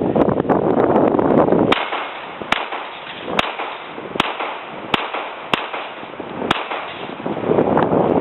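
Seven shots from a Glock 19 9mm pistol with an unported Storm Lake aftermarket barrel, fired at a steady pace about one shot every 0.8 s, starting about 1.7 s in and ending about 6.5 s in. Wind noise on the microphone before and after the string.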